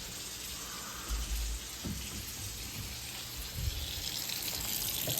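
Kitchen sink faucet running in a steady stream, shut off abruptly near the end, with a few low knocks along the way.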